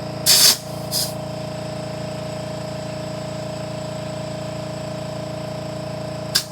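Small air compressor running steadily while it inflates a car tire. Short hisses of air come at the valve stem about half a second in, again about a second in, and near the end.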